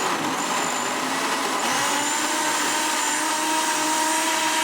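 Loud, steady machine noise, a motor-driven whir with a faint high whine, running evenly without change.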